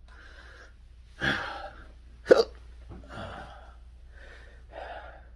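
A man hiccuping from intractable, persistent hiccups: one sharp, loud hiccup about two seconds in, with a softer breathy burst a second before it and quiet breaths after.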